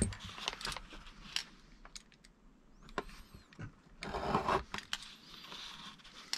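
Scattered light clicks, taps and short scrapes of hands and a cutting tool working on double-sided tape, as the tape is cut to size.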